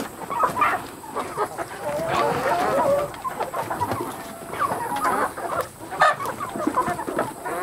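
A flock of hens clucking, with many short, overlapping calls throughout.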